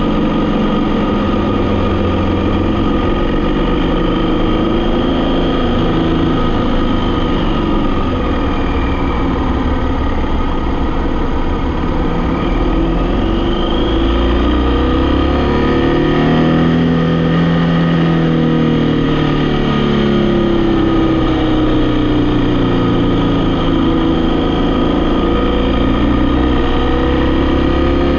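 Vehicle engine running steadily while driving, its pitch slowly rising and falling as the revs change.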